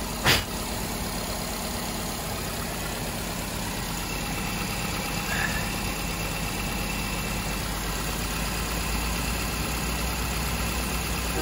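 Car engine idling steadily, heard from under the open hood, with a single sharp click about a third of a second in.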